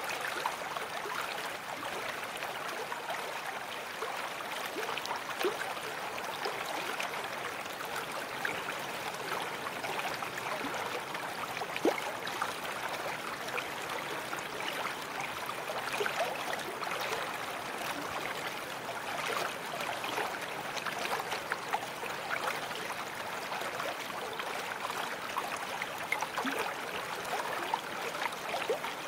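Babbling brook: water running steadily, with many small splashes scattered through the flow.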